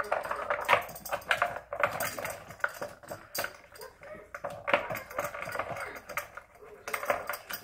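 Red plastic dog treat puzzle toy clicking and rattling as a small dog noses and pushes at its cups and perforated plastic ball lids: a quick, irregular run of light plastic knocks.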